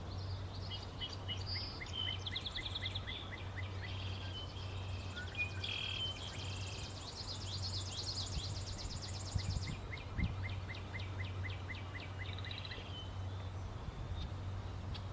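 Several birds calling and singing around a wetland pond, with overlapping chirps and fast trills. A steady low hum runs underneath.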